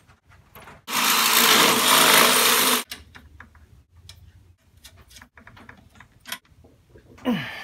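An electric drill runs for about two seconds, drilling through the lawn mower's folding handle tubes for a bolt, followed by scattered light clicks and taps of the bolt and nut being fitted by hand.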